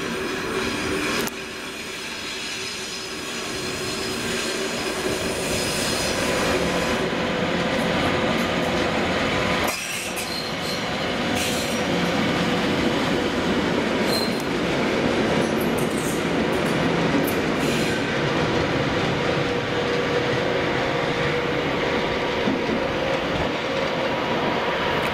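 DR class 232 'Ludmilla' diesel locomotive 232 079 running light through a rail yard, its V16 diesel and turbocharger running with a steady whine and its wheels squealing through the points. It comes up close, passes, and draws away.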